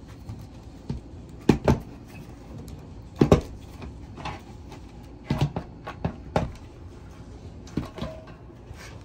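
Sharp knocks and clacks of a battery pack's case being worked loose and lifted off the cells on a wooden table: a pair about a second and a half in, another pair near three seconds, a run of four around five to six seconds, and two more near the end.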